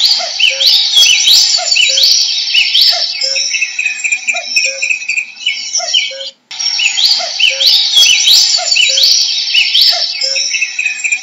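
Common cuckoo calling, its low two-note 'cuck-oo' repeated steadily, the second note lower, under a louder chorus of other songbirds singing high, rising whistled notes. There is a short break about six seconds in, after which the same passage of song repeats.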